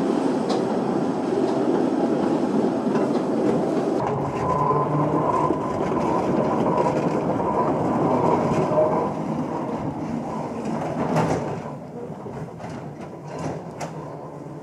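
Narrow-gauge train running on the rails: a steady rumble of wheels on track. It quietens near the end, with a few sharp clicks.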